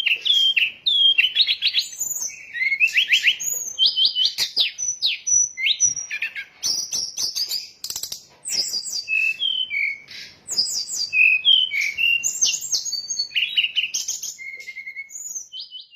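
Brown-chested jungle flycatcher (sikatan rimba dada coklat) song, played as a bird-trapping lure call: a rapid, unbroken run of varied high whistles, fast trills and sharp clicking notes.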